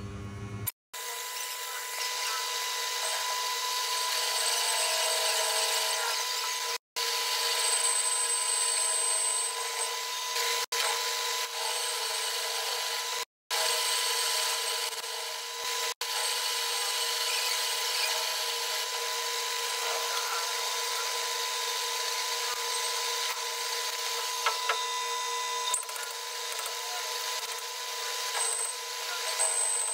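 Metal lathe running, turning and machining a welded steel rotavator hub shaft: a steady machine whine with the scrape of the cutting tool on the steel, broken by a few brief dropouts.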